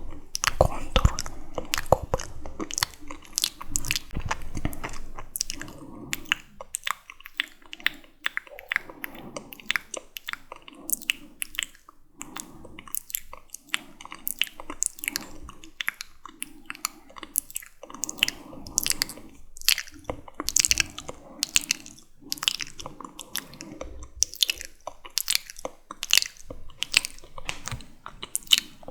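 Wet, sticky mouth sounds: irregular clicks and smacks of lips, tongue and saliva, several a second.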